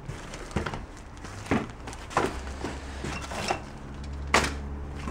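A hand rummaging through a cardboard box of small household items: a handful of separate knocks and rustles as objects are moved. A low steady hum comes in about halfway through.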